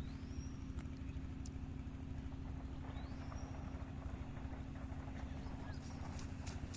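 A motor running with a steady low hum. Two short rising chirps come about a quarter second and three seconds in, and a few sharp clicks come near the end.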